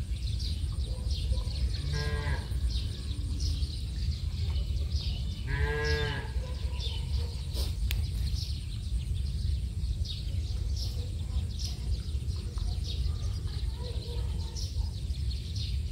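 Cattle mooing twice: a short call about two seconds in, then a longer one around six seconds that rises and falls in pitch.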